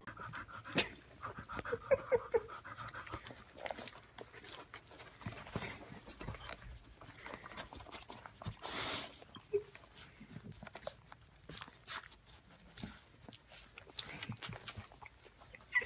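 Puppy suckling from a milk bottle: quiet, irregular wet sucking and smacking clicks with quick breathing, and now and then a short faint squeak.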